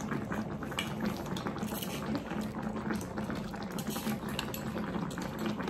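Chicken hotpot broth boiling steadily in a tabletop hotpot, with a few faint clicks through the bubbling.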